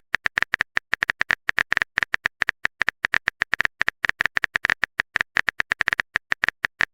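Keyboard typing sound effect: a quick, uneven run of short clicks, several a second, like keys being tapped while a message is written.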